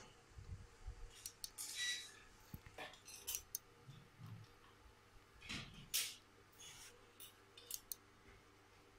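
Faint crinkling of a plastic bag and scattered light clicks as a CYCJET ALT382 handheld inkjet printer is set down and rolled across the bag, printing barcodes.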